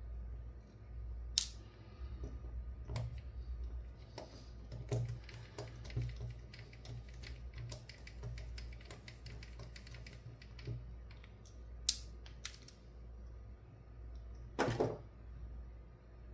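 Small irregular metal clicks, taps and rattles from hand work on a 5-pin rim lock cylinder and its small tools, over a steady low hum. There are sharp single clicks about a second and a half in and about twelve seconds in, and a louder rattling clatter a little before the end.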